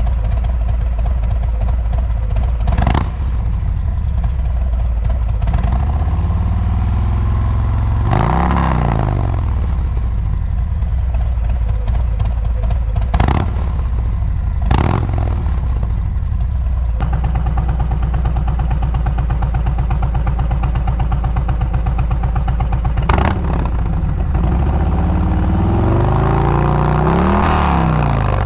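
Harley-Davidson Milwaukee-Eight 114 V-twin, Stage 2 with an SE8-447 cam, running through aftermarket slip-on mufflers. It revs up and back down about eight seconds in and again near the end, with a few brief sharp sounds in between.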